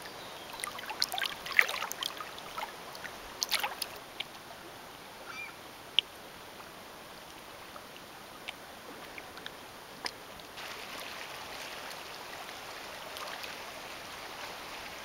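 Small lake waves lapping and splashing against granite shore rocks, busy in the first few seconds and then only now and then. About two-thirds of the way through, a steady soft rush of wind and water takes over.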